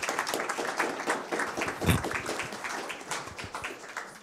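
An audience applauding, a dense patter of hand claps that dies away near the end.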